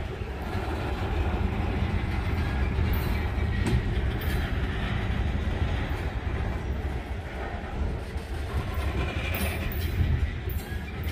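Freight train cars rolling past with a steady low rumble, and clicks from the wheels passing over rail joints, more of them near the end.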